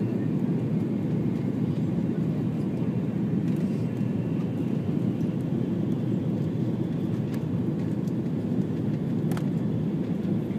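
Steady low rumble of engine and airflow noise heard inside the cabin of an Airbus A330 airliner on its landing approach, with one faint click near the end.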